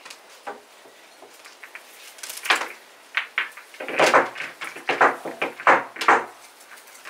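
Pool balls clacking against one another and the triangle rack as they are packed into a rack: a run of sharp knocks starting about two and a half seconds in and stopping about six seconds in, the loudest around four seconds.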